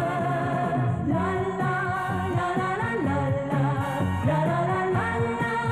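A light pop song from 1972 plays: orchestral accompaniment under a wavering melody line.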